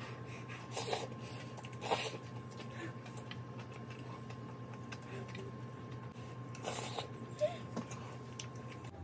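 Close-up eating sounds: a mouthful of tofu noodles in tomato sauce slurped and chewed, with a few short wet mouth sounds. A steady hum runs underneath.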